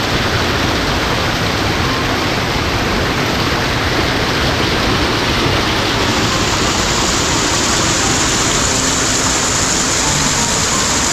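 Waterfall: water pouring steadily over rock in a loud, even rush. The hiss turns a little brighter about halfway through.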